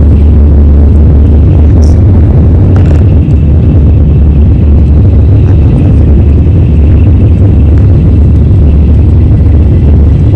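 Steady, loud low rumble of a moving train, heard from inside the carriage.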